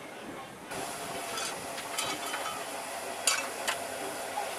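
Miniature live-steam locomotive hissing steam, starting abruptly about a second in, with a few sharp clicks over the steady hiss.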